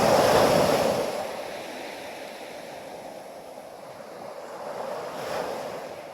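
Surf: a wave rushing in loudly and slowly easing off, then a second, smaller swell near the end.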